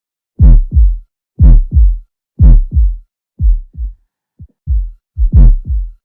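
Recorded heartbeat through a stethoscope at about one beat a second, each beat a deep double thud (first and second heart sounds, 'lub-dub'). In the last beats a faint extra low sound comes just before the first heart sound: a presystolic fourth heart sound (S4 gallop), the sign of the atria contracting against a stiff, poorly compliant ventricle.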